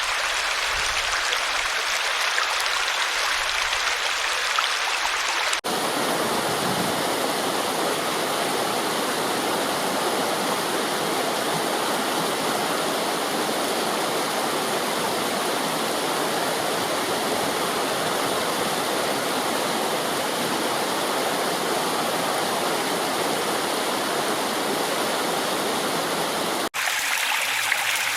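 Running water rushing steadily. It breaks off for an instant about six seconds in and again near the end where recordings are spliced together. Between the two breaks it sounds fuller and deeper.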